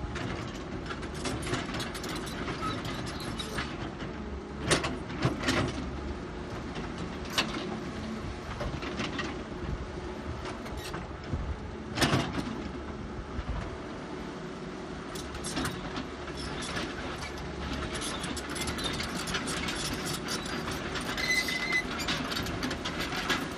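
Caterpillar 320B hydraulic excavator at work: its diesel engine runs steadily under a string of sharp metal clanks and bangs, the loudest about five seconds in and again around twelve seconds.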